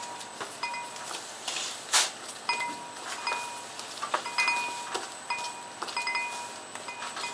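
Yeast dough being kneaded by hand on a stainless steel worktable, with a sharp knock about two seconds in. Short, steady high ringing tones come and go repeatedly behind it.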